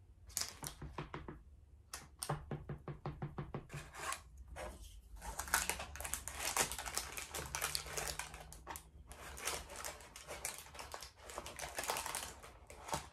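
A knife cutting a cake in a parchment-lined baking pan, a rapid run of clicks, then parchment paper crinkling and scraping as a plastic spatula is worked under a slice.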